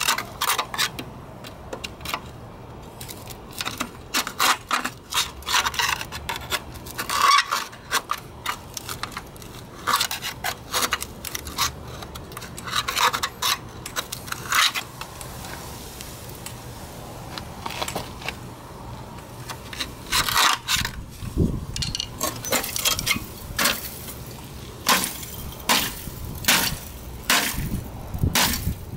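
A thin steel rod scraping and clinking against the sheet-metal shell of a scooter muffler as it pries at the cut seam: irregular metallic scrapes and sharp clicks.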